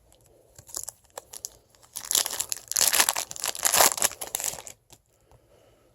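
Sports-card pack wrapper being torn open and crinkled: faint handling clicks, then a loud burst of crinkling from about two seconds in that stops shortly before the end.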